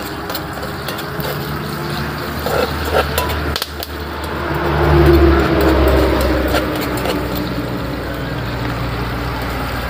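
A motor vehicle's engine running nearby, a steady low hum that swells to its loudest about five seconds in and then eases off. A few light clicks come through around the second to third second.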